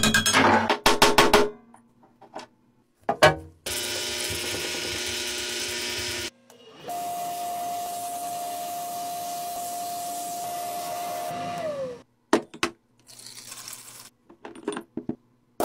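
Workshop sounds from several short clips cut together. Quick sharp metal clicks and knocks come first. A steady hiss follows for about three seconds, then a steady noise with a held tone for about five seconds whose pitch drops as it stops, then a few more short knocks.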